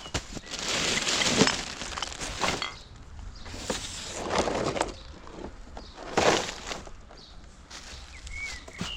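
Rubbish being rummaged through by hand: rustling and clattering in bursts of a second or two, with sharp knocks among them. A bird chirps a couple of times near the end.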